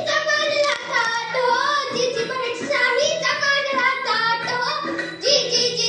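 A young girl singing a melodic line solo, her voice holding and bending long notes.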